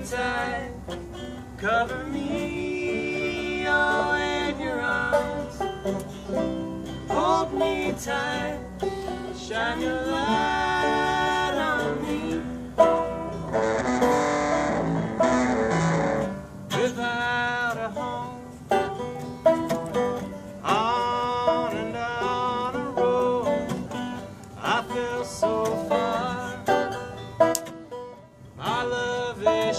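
Banjo picked alongside a strummed acoustic guitar in a live country/folk song, with a male voice singing the melody.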